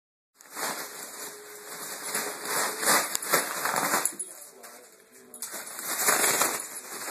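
A small dog tussling with a balloon on a vinyl floor: the balloon rustles and crinkles, and the dog's claws click and scrabble on the floor, with a brief lull a little past the middle.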